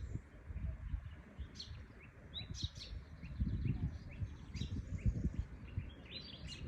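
Birds chirping in short, separate calls that gather into a dense run of chirps near the end, over an uneven low rumble.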